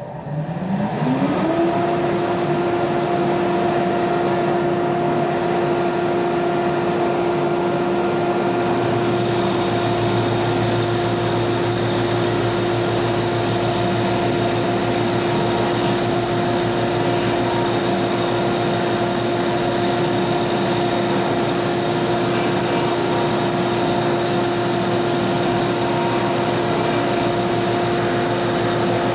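Shop dust collector switched on: its motor and impeller spin up with a rising whine over about a second and a half, then run with a steady hum over a rush of air. About nine seconds in, a lower hum joins as the Delta belt and disc sander starts.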